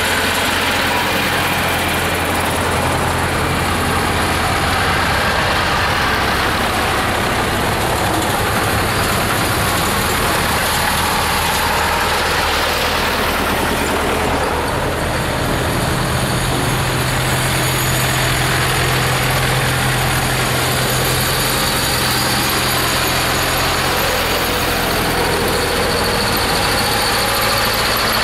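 Camera drone's propellers and motors running, a loud steady buzz whose pitch shifts about halfway through as the drone changes speed.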